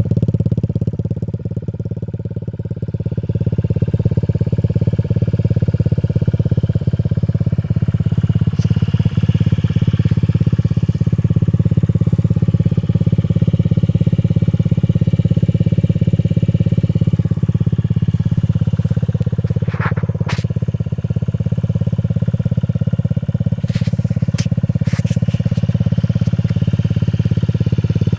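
2019 Honda Ruckus scooter's single-cylinder four-stroke engine running steadily through a Big Gun Evo S aftermarket exhaust, a constant low exhaust rumble that dips briefly near the start. A few short clicks about two-thirds of the way through.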